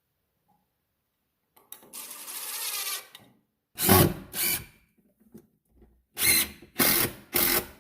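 Power drill or driver at work on wood: one longer run of about a second and a half, then five short bursts in two groups, as when screws are being driven.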